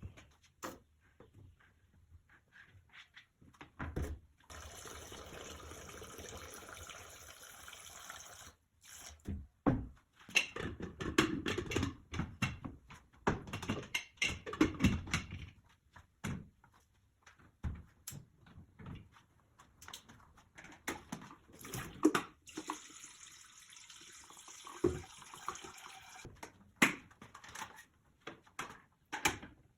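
Water running from a kitchen tap into a sink in two stretches, with repeated knocks and clatter of items being handled and washed in between.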